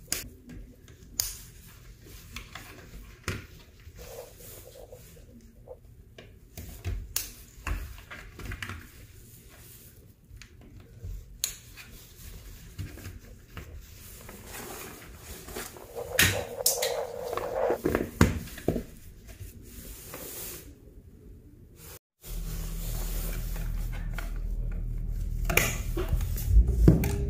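Gloved hands working on electrical wiring: scattered small clicks and rustles of lever wire connectors, cable and a junction box being handled. After a sudden cut about 22 seconds in, a steady low hum takes over.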